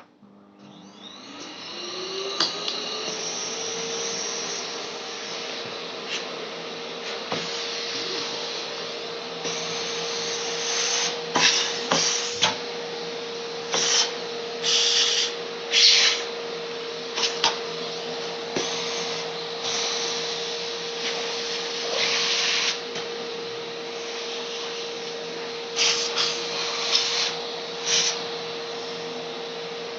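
A small electric motor spins up over the first few seconds, then runs steadily with a whirring hum, broken again and again by short, louder bursts of hiss.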